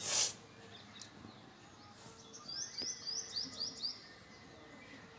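A bird chirps a quick run of about six high notes a little past the middle. A short, loud hiss comes right at the start.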